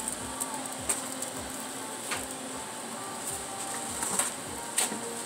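Egg frying in oil on a steel flat-top griddle, sizzling steadily with a few sharp pops and crackles.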